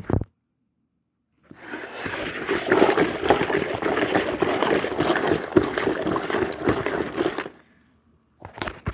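Washing machine running a wash with water: a dense, rattling churn that starts about a second and a half in and stops suddenly about six seconds later. There are brief sounds at the very start and near the end.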